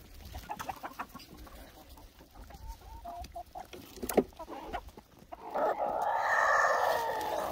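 A flock of backyard hens clucking in short scattered calls as they crowd in to peck at kitchen scraps thrown on the ground. Near the end a louder, noisy sound lasting about two seconds rises over them.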